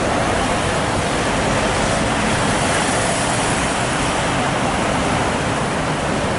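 Steady rushing noise of city street traffic at a busy intersection, with no single vehicle standing out.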